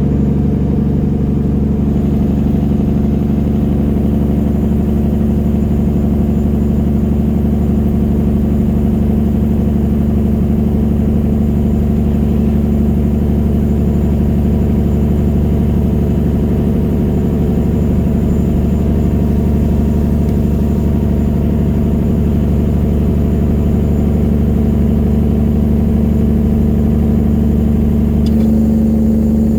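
Straight-piped 1999 Peterbilt 379 semi truck's diesel engine running, a loud steady drone that shifts slightly in pitch near the end.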